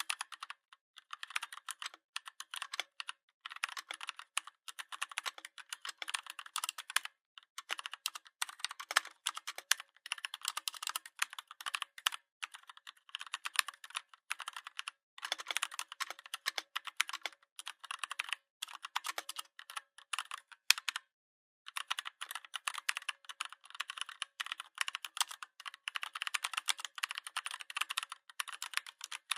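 Fast continuous typing on a Redragon 61-key mechanical keyboard: a dense run of key clicks with a few brief pauses, the longest about 21 seconds in.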